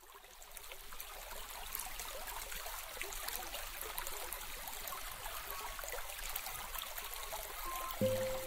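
A steady hiss dotted with many tiny crackles and ticks, fading in at the start. Near the end a few sustained musical notes come in.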